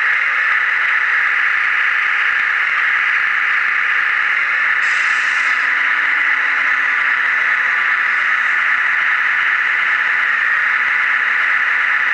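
Steady high whirring of the RC truck's small electric drive motor and gearbox, heard close up from on board the moving model, with a short hiss about five seconds in.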